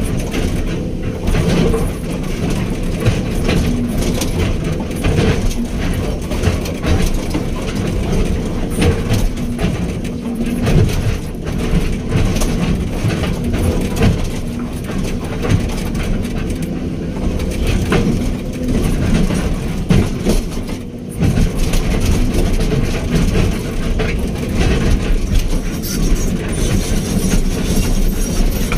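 Backhoe excavator's diesel engine running steadily under work, with frequent metallic clanking and rattling throughout.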